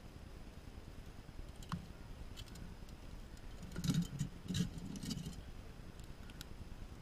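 A few scattered light clicks, then a short burst of clatter, as of small hard objects being handled, about four to five seconds in, over a faint steady outdoor background.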